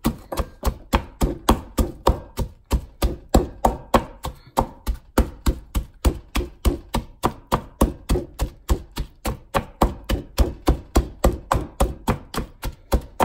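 Peeled garlic cloves being smashed with salt: a steady run of sharp strikes, about three or four a second, as the garlic is crushed into a paste.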